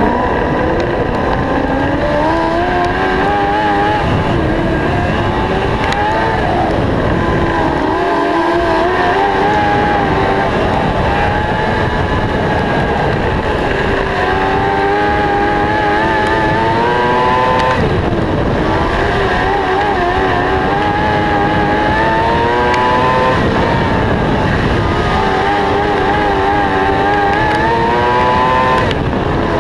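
600cc micro sprint car's motorcycle engine at racing speed, its pitch climbing for a few seconds, then falling back, again and again as the car laps the track.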